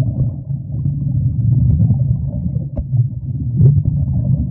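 Steady muffled low rumble of water heard by a camera underwater beneath a yacht's hull, with a few faint clicks.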